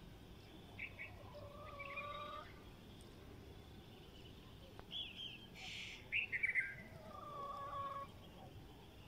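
Birds chirping in short high phrases, several dropping in pitch. The chirps come around the first two seconds and again about five to seven seconds in, with a longer, steadier and lower call twice.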